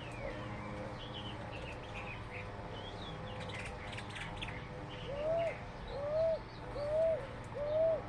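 Several birds calling. Small high chirps and trills run throughout, and in the second half there are four louder, lower calls, each rising and then falling, about half a second long and in even succession.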